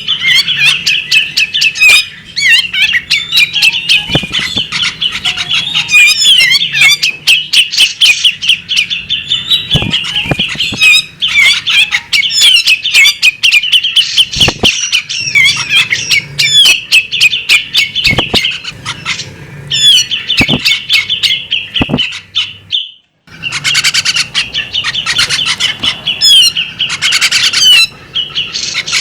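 Female magpie robin calling in a fast, unbroken chatter of rapid high notes mixed with sharp clicks, pausing briefly about two-thirds of the way through.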